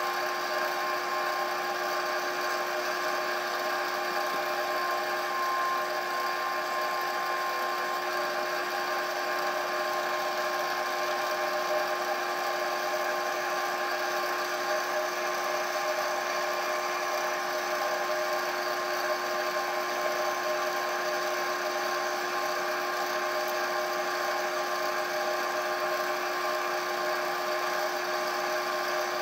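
Wood lathe running at a steady speed: a constant motor whine with several steady tones, while friction polish is worked into the spinning piece with a cloth.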